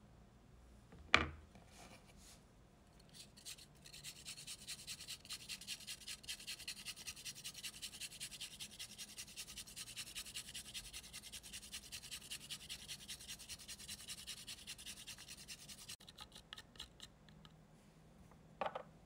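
A kitchen utensil scraping rapidly and evenly, several strokes a second, for about twelve seconds. It is preceded by a single sharp click about a second in, and a short knock comes near the end.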